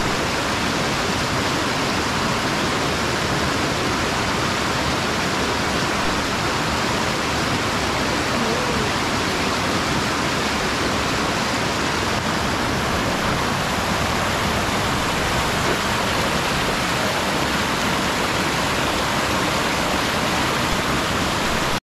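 Steady rush of fast-flowing water, an even noise without let-up that cuts off abruptly at the end.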